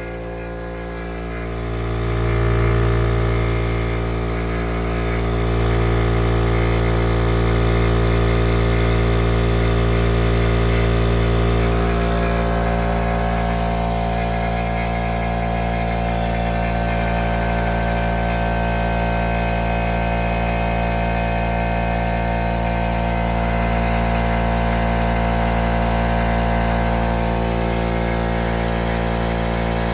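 Husky oil-free air compressor running steadily, a loud motor-and-pump hum that grows louder about two seconds in.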